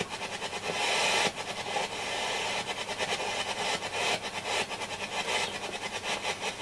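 Hacker Hunter RP38A transistor radio on FM putting out a hiss broken by rapid, irregular pulsing from its speaker. This is the set's oscillation fault, which the repairer suspects comes from a loose IF transformer core. The hiss is louder for about the first second, then drops.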